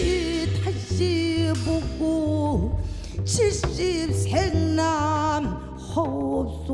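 A woman singing in Korean traditional sori style, holding long notes with a wide, wavering vibrato, over a band with double bass and drums.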